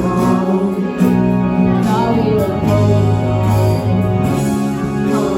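Background pop music with held chords, a bass line and a faint singing voice.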